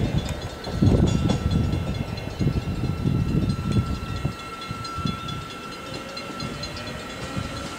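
Hyundai Rotem-built FP class Matangi electric multiple unit running by: a loud, uneven low rumble of the train for the first half, dying away after about four seconds, with a thin steady whine above it.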